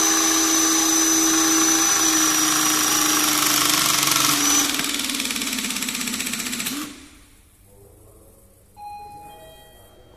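Two battery-powered hydraulic crimping tools run together under load as they crimp 120 mm² cable connectors, with a steady high whine from their electric motors and pumps. About four and a half seconds in, the sound drops as one tool finishes its crimp. The other runs on until about seven seconds in and then stops, and a few faint short tones follow.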